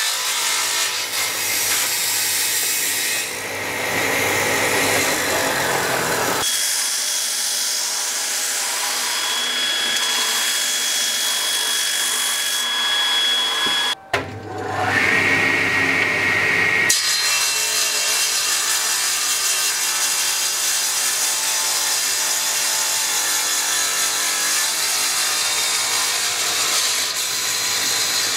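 Table saw running and cutting a small block of handle material, a loud, steady whine and rasp. The sound changes abruptly a few times, and about 14 seconds in it briefly drops away before a short rising tone.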